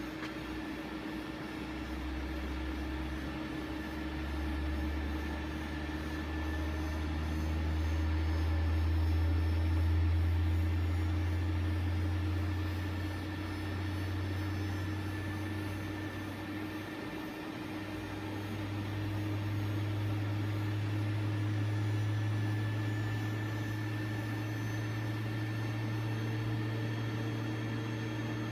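Thermo IEC Multi RF centrifuge accelerating its rotor from about 1500 to 5000 rpm, reaching set speed near the end. A low motor hum rises steadily in pitch and swells louder twice along the way, over a steady higher hum.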